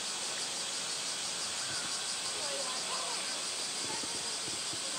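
Steady high-pitched drone of insects in outdoor summer ambience.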